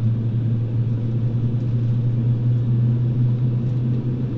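Steady low drone inside the cabin of an Airbus A321 on the ground during startup, a constant hum with no change in pitch.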